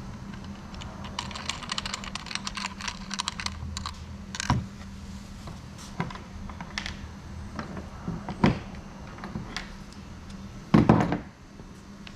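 Small metal hardware and plastic mount parts clicking and rattling as washers and nuts are fitted onto bolts by hand. A quick run of clicks comes early, then single knocks, and a louder clatter near the end.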